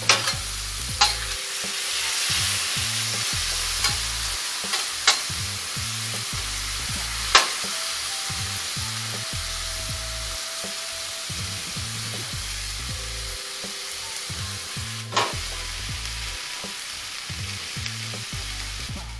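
Diced meat sizzling on a stainless steel flat-top griddle, with a metal spatula scraping and clacking on the steel as it is stirred and turned. The spatula strikes come as a handful of sharp clacks, the loudest about seven and fifteen seconds in.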